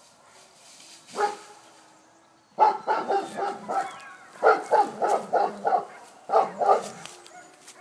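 Giant Schnauzer barking defensively at a stranger approaching the fence: one bark about a second in, then a rapid run of barks, several a second, for about four seconds.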